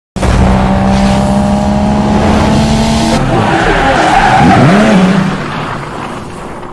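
Loud car sound with tyre squeal, starting abruptly and fading out over the last two seconds.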